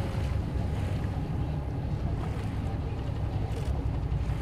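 Steady low rumble of wind buffeting the microphone out on open water.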